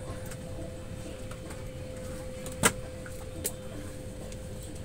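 Steady airliner cabin noise, a low rumble of ventilation with a faint steady hum, during boarding. A single sharp clack a little past halfway, like an overhead bin or luggage being handled, and a smaller click about a second later.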